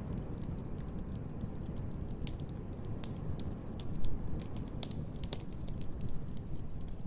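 Wood fire in a fireplace crackling, with irregular sharp pops over a steady low rumble; one louder pop comes about four seconds in.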